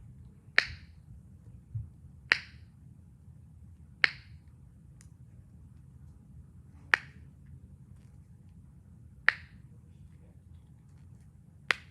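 Handheld fidget toy being snapped, giving six sharp single clicks spaced about two seconds apart, with one duller knock early on between the first two clicks.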